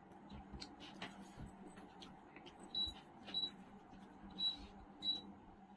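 Quiet eating sounds: fingers mixing rice on a plate, then biting into and chewing a piece of fried chicken, with small clicks. Several short high squeaks come through in the second half, spaced well under a second apart.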